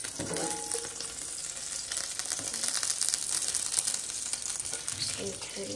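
Butter sauce sizzling in a hot frying pan, a steady fine crackle.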